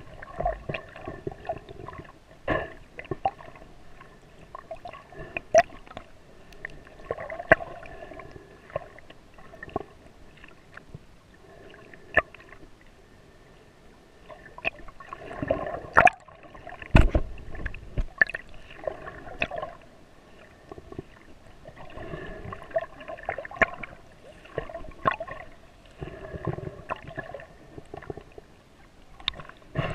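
Water sloshing and gurgling heard muffled through a GoPro's waterproof housing while snorkeling, with irregular sharp clicks and knocks against the case and one heavier thump about two-thirds of the way in.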